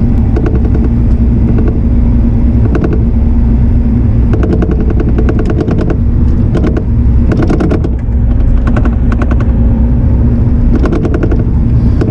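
Diesel engine of an earthmoving machine running steadily under load, heard close up from the operator's position. Several bursts of rapid clicking and clattering come and go over it.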